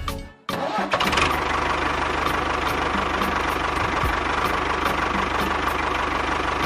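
Engine running steadily, cutting in abruptly about half a second in after a brief gap, with a light regular ticking over the noise.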